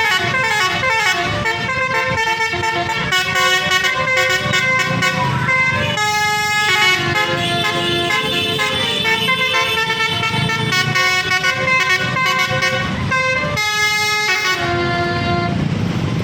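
Indonesian bus's 'telolet' musical air horn (Basuri type) playing a tune of stepping multi-tone notes, with two short breaks, about six and thirteen and a half seconds in, over a low engine rumble; the horn dies away near the end.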